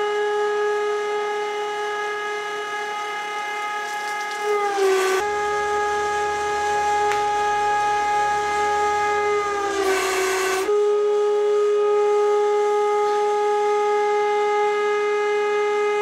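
Hydraulic press running with a steady high whine that sags a little in pitch as the ram loads up. The whine breaks off with a short burst of noise about five seconds in and again about ten seconds in, then starts again.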